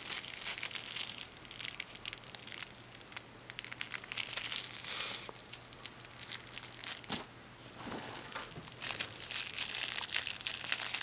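Clear plastic wrapping around a headphone cable crinkling and crackling as hands pull and work it open, in irregular crackles with a brief lull past the middle.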